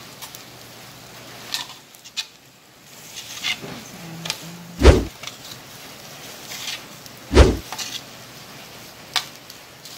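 Tongs knocking and scraping on a tabletop samgyupsal grill pan while meat is stirred: scattered clicks, with two loud, deep knocks about five and seven and a half seconds in.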